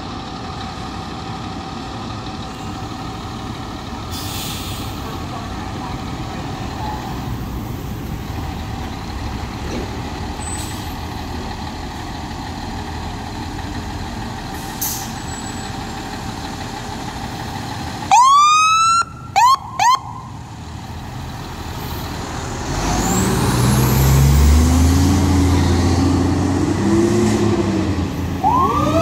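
Fire engine's diesel engine idling, then three short loud horn blasts, the first the longest. The engine then revs up as the truck pulls out, and a siren starts to wind up just before the end.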